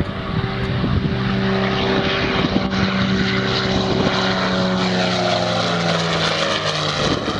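Dornier Do 28 Skyservant's twin piston engines and propellers droning steadily as it flies a low pass, the tone dropping in pitch as the aircraft goes by near the end.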